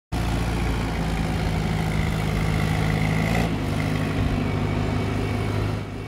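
Construction machine's engine running steadily, with a faint high whine over it for a second or so that stops about three and a half seconds in, where the engine's pitch shifts slightly.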